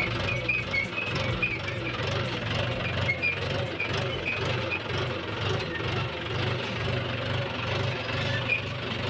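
Farm tractor's diesel engine running steadily while pulling a seed drill sowing mustard, heard from the driver's seat, with faint regular ticking over the engine.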